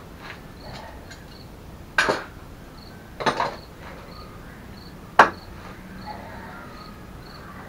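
Sharp metallic clanks and knocks from metal parts being handled and fitted during reassembly of a mobility scooter's rear end: three loud ones about two, three and five seconds in, the middle one doubled. A cricket chirps steadily in the background.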